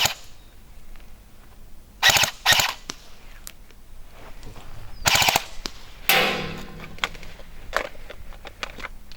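Airsoft guns firing short full-auto bursts of rapid clicking shots: two quick bursts about two seconds in, another about five seconds in, and a brief one near the end.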